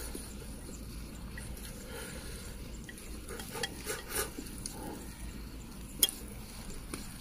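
Chopsticks clicking and scraping against a ceramic plate as food is shovelled from it into the mouth: a cluster of light clicks around the middle and one sharp click about six seconds in, over a steady low hiss.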